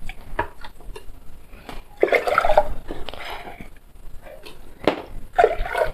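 Water scooped from a plastic bucket with a gourd bowl and poured into a cooking pot, splashing for about a second and a half starting about two seconds in, with a few light knocks of the gourd.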